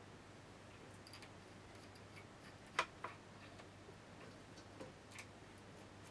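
A few small clicks and taps from handling a small RF amplifier board with metal coaxial connectors, the sharpest about three seconds in with a smaller one just after, over a faint steady hum.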